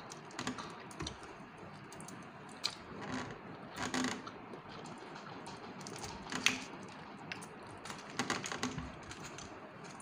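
Fingers picking apart a tulingan (bullet tuna) on a foil-lined tray, making irregular small clicks and crinkles, with louder clusters about four, six and a half and eight seconds in.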